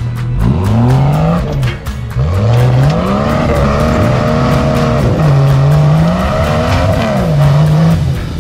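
Off-road vehicle's engine revving up and down over and over as it works its way up a rock obstacle, rising and falling several times. Background music with a steady beat plays underneath.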